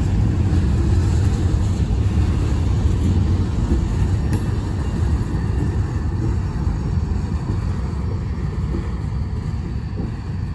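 Covered hopper cars of a freight grain train rolling past: a steady low rumble of steel wheels on rail that slowly fades as the last car goes by near the end.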